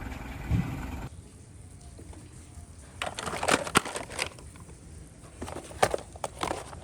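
Clicks and scrapes of small plastic toys being handled, in two short clusters. A steady low noise before them cuts off abruptly about a second in.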